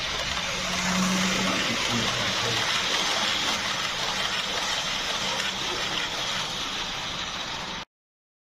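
HO-scale model train running past close by: a steady rushing hiss of the wheels rolling on the rails, with a brief low hum about a second in. The sound cuts off suddenly near the end.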